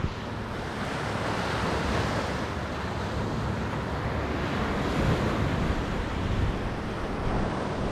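Small Lake Michigan waves washing onto a sandy beach, a steady rush that swells and eases, with wind buffeting the microphone.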